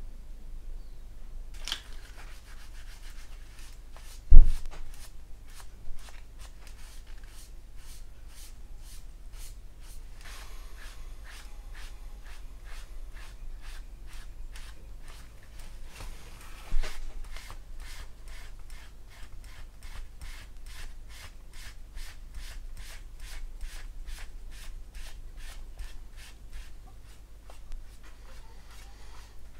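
Tissue or paper towel rubbing over the plastic surface of a scale model aircraft in quick, repeated strokes, wiping off a wash to leave streaks. A loud thump about four seconds in and a smaller knock near seventeen seconds.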